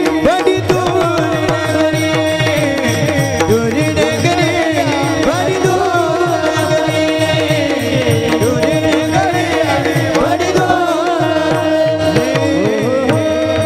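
Marathi kirtan devotional music: a voice singing a winding melody over a steady drone, driven by fast, even hand-drum strokes.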